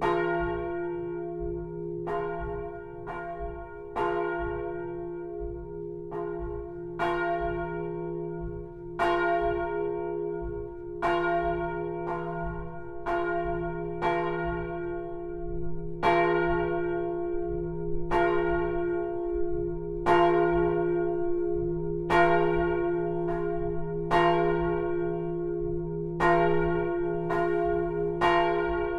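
Swinging bronze church bell, 820 kg, cast in 1515 by François de Montfort and tuned to F (fa3), rung in full swing. Its clapper strikes about once every second or two, each stroke ringing on over a steady low hum that never dies away between strokes.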